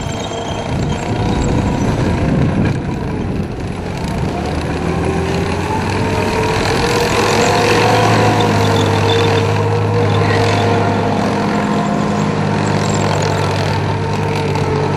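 A Centurion Mk5/2 tank's engine running as the tank drives. Its pitch climbs and then eases back about halfway through.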